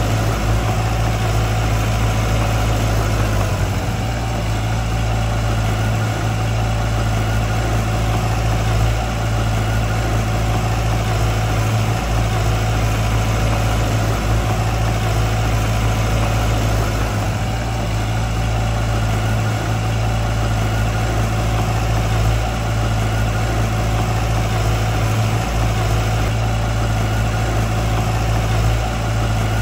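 Diesel engine of heavy construction machinery running steadily at low revs, an even low hum that does not rise or fall.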